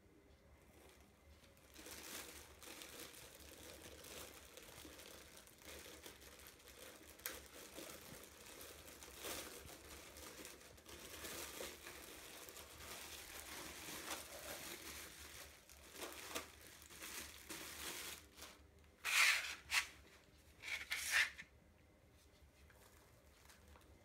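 Plastic wrapping crinkling and tearing as it is pulled off a flexible tumble-dryer vent hose, with a few louder tears near the end.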